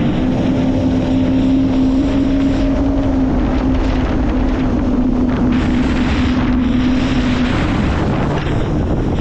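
Jet ski engine running at a steady cruising pitch, with water rushing past and wind buffeting the microphone. The engine note eases off near the end.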